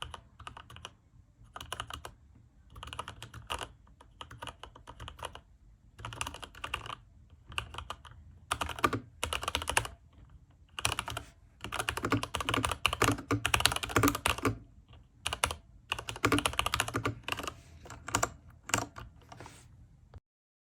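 Typing on a Varmilo mechanical keyboard with linear Cherry MX Red switches and PBT keycaps: bursts of rapid keystrokes with short pauses between them, the busiest and loudest runs in the middle and later part. The sound cuts off abruptly near the end.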